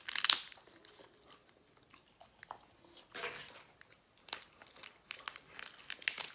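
Close-miked eating sounds: a loud crunch just after the start, another about three seconds in, and scattered sharp clicks and cracks in between.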